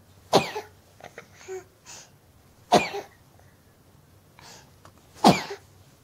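Baby sneezing three times, about two and a half seconds apart, each sneeze short and sharp.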